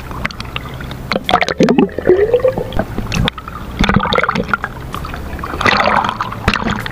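Sea water splashing and sloshing in irregular bursts at a small fishing boat, with a few sharp knocks in between.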